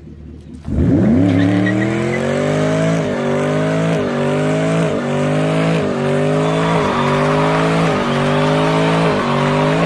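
A muscle car's engine running at high revs with tyres squealing, its pitch rising and then dropping back about once a second as the throttle surges. It starts suddenly just under a second in.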